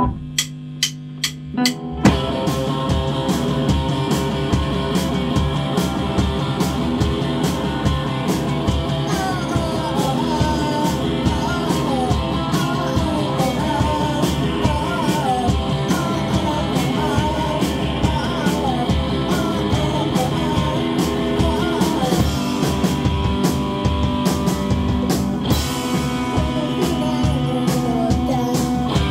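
Live rock band playing: a few sharp hits, then electric guitar, bass and drum kit come in together about two seconds in, with a singer's voice over the band.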